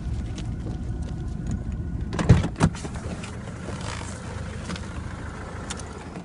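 Steady low rumble inside a car cabin, with two sharp knocks close together about two and a half seconds in.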